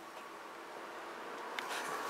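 Quiet outdoor background noise, with a single faint click near the end.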